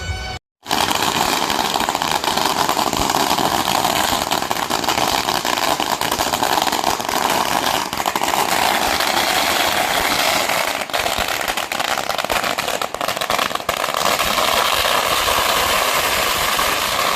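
A long string of firecrackers going off in a continuous dense crackle as a firecracker salute. It starts abruptly about half a second in and keeps up without a break.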